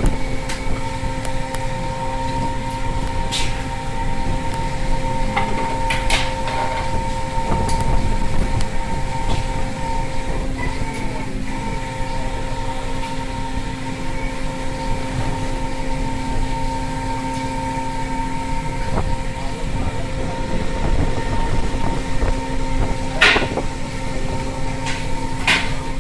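Fishing boat's engine and machinery running with a steady drone holding a few constant pitches, broken by a few sharp knocks, two of them close together near the end.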